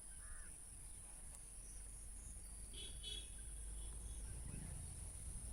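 Faint, steady high-pitched chorus of crickets, with a couple of short chirps, one just after the start and one about three seconds in.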